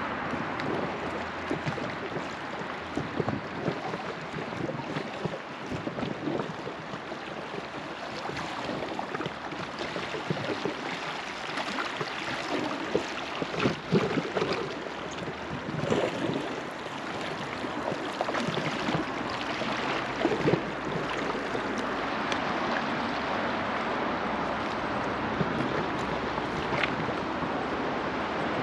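River water running and splashing around a drifting raft, with frequent small irregular splashes and slaps against the boat and a few louder splashes partway through.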